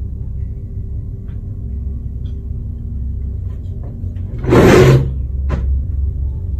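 A steady low hum of room noise. About four and a half seconds in, a sudden loud noise lasts about half a second, and a short knock follows a moment later.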